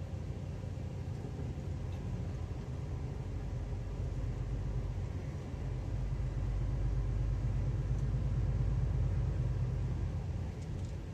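Engine and road rumble inside a moving truck's cab: a steady low drone that grows louder about halfway through.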